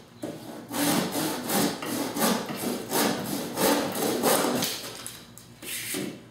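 Hand saw cutting wood: a quick run of even back-and-forth strokes, about three a second, then a pause and one last stroke near the end.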